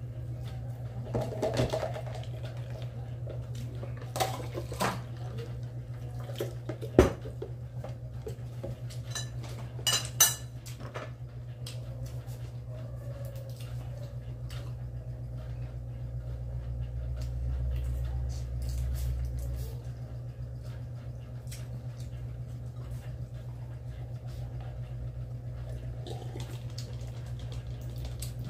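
Plates, spoons and cups clinking now and then during a meal, a few sharp clinks standing out about seven and ten seconds in, over a steady low hum.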